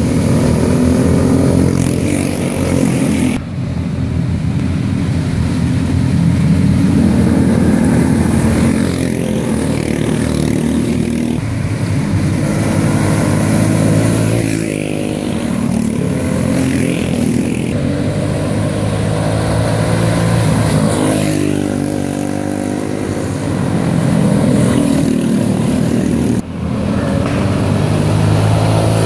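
Go-kart clone engines (small single-cylinder four-stroke motors) running hard as several karts race past, the engine pitch rising and falling with throttle. The sound jumps abruptly twice, about three seconds in and near the end.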